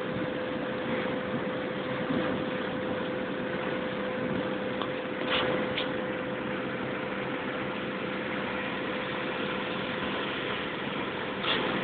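Steady engine and road noise inside a moving vehicle, with a constant hum and a few brief clicks about five seconds in and near the end.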